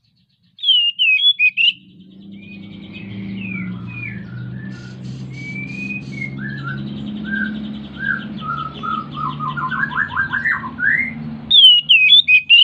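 Oriental magpie-robin in full breeding condition singing: loud clear whistled phrases about half a second in and again near the end, with a softer run of varied chirps, short rattles and quick rising notes between them. A low steady hum runs underneath the middle part.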